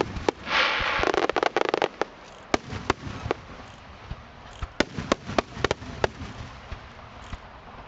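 Aerial fireworks bursting close by: a dense flurry of rapid crackling reports for about a second and a half near the start, then scattered single sharp bangs.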